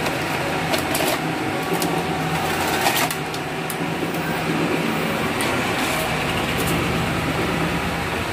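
Cassette-loading mechanism of a Panasonic VHS front-loading VCR running as a tape is drawn in and loaded: a steady motor hum with several sharp mechanical clicks.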